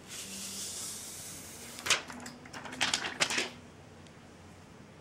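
Protective backing film being peeled off a tempered glass screen protector: a soft hiss of film coming away, then a quick run of crackling clicks about two to three seconds in.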